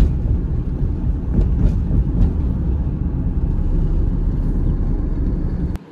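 Road and engine noise inside a moving car's cabin, a steady low rumble. It cuts off suddenly near the end, leaving a much quieter room background.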